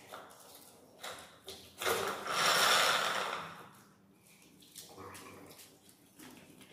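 People eating rice and curry with their hands. About two seconds in comes a loud breathy rush of air through the nose or mouth that lasts about a second and a half, with faint eating noises around it.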